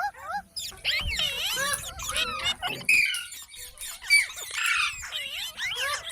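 Indian ringneck parrot chattering and squawking: a quick, continuous run of short whistled calls that rise and fall in pitch.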